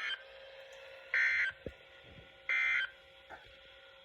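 EAS end-of-message code on NOAA Weather Radio: short, identical bursts of screechy digital data, the first already under way, about 1.3 seconds apart, signalling the end of the alert test.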